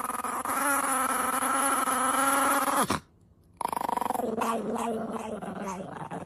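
Chihuahua puppy growling steadily over its food bowl, guarding its food. The growl drops and breaks off about three seconds in, then starts again after a short pause.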